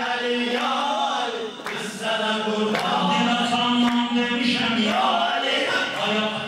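Men chanting a Shia religious elegy (mersiyye) into microphones: a lead voice sings the lines over a group of men holding a steady drone note. Faint regular beats come about once a second.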